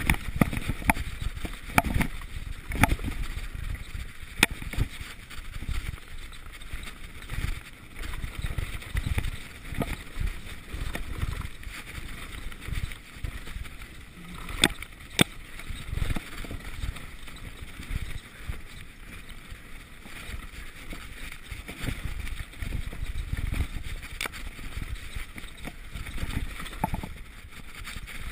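Mountain bike descending a rough dirt and rock trail at speed: uneven rumble of the tyres and wind on the rider's camera, broken by frequent sharp knocks and rattles as the bike hits rocks and roots.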